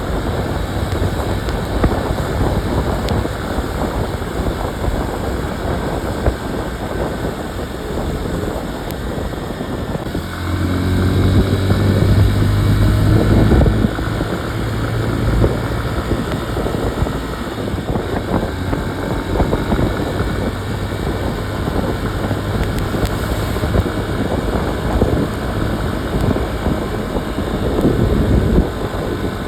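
Motorcycle engine running under way with wind buffeting the phone's microphone and road rumble. About ten seconds in, the engine note grows louder for a few seconds as the bike accelerates, then settles back to a steady cruise.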